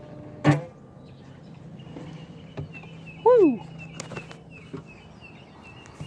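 A sharp knock about half a second in, then a single loud bird call about three seconds in, an arching cry that rises and falls in pitch. Under it runs a steady, thin high tone in the outdoor morning ambience.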